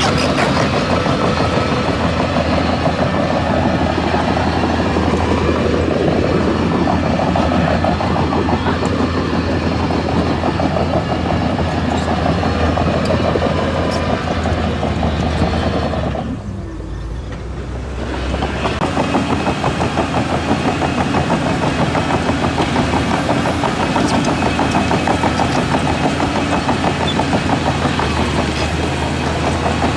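Heavy diesel engine of earthmoving equipment running steadily, with a low, even engine note. Just past the middle it turns muffled and quieter for about two seconds, then picks up again.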